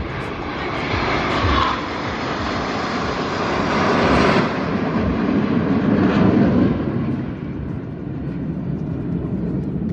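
Aircraft flying past: a broad rushing engine noise that swells to its loudest around the middle and dies down about seven seconds in.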